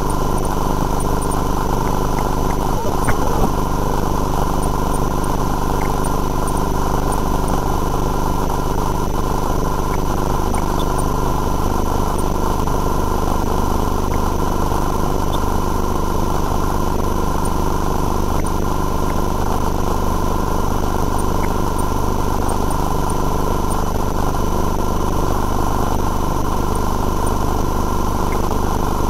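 Steady engine-like drone with a constant machine hum that does not change. There is a brief knock about three seconds in.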